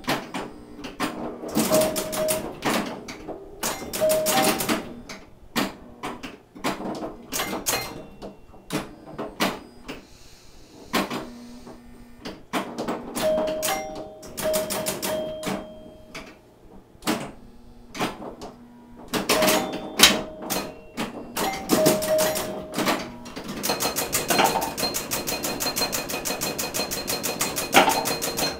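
1974 Williams Skylab electromechanical pinball machine in play: bell chimes ringing in short bursts amid the clacking of relays, score reels, flippers and bumpers. Near the end a rapid, even run of clicks with ringing chimes goes on for about five seconds.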